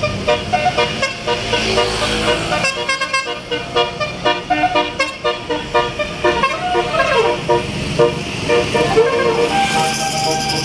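Tour bus's 'telolet basuri' musical air horn playing a quick tune of short, clipped notes, with a sliding note about seven seconds in and longer held notes near the end.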